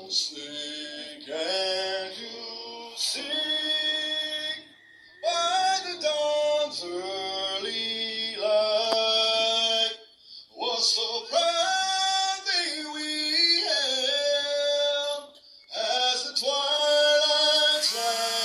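A solo voice singing in four long phrases with held, wavering notes and short pauses between them.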